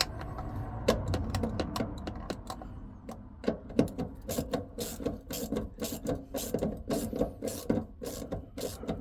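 Ratchet clicking in short repeated runs as the small retaining bolts of a van's fuel tank sender unit are wound in, snugged but not yet fully tight.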